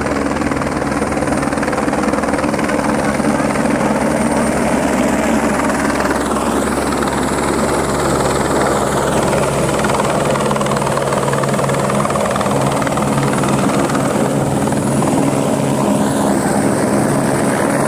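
Single-engine Airbus AS350-type helicopter descending and hovering low to land close by: a loud, steady rotor beat with a high turbine whine.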